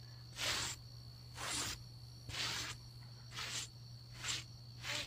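Brush strokes scrubbing hair out of a saddle pad, six rasping sweeps about one a second.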